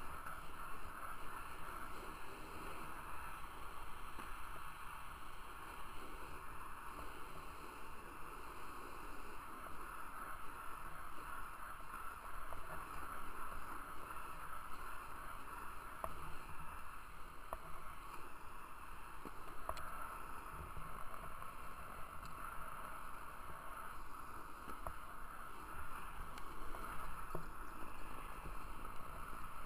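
Skate wheels rolling steadily over pavement, with wind rushing over a camera held close to the ground and a few faint clicks.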